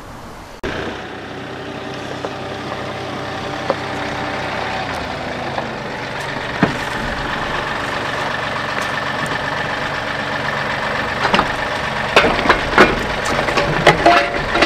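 Compact tractor engine idling steadily, slowly getting a little louder. Sharp metal clanks and knocks come in the last few seconds.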